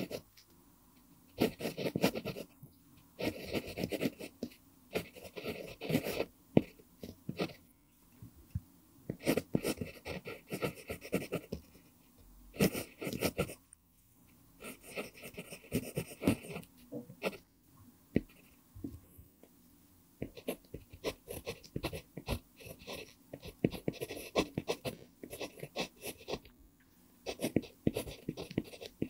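Pentel PG5 mechanical pencil with an mpingo wood barrel writing on lined paper: the lead scratches in bursts of strokes, with short pauses between words.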